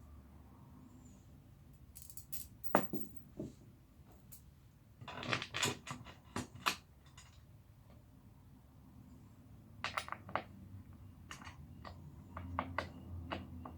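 Scattered clicks and knocks of chair parts and hardware being handled and fitted during assembly, coming in several short clusters with quieter gaps between them.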